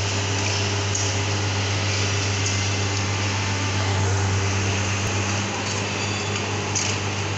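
Engine of a rail-mounted track-laying machine running steadily while it handles concrete sleepers: a constant low hum with a broad hiss over it, loudness barely changing.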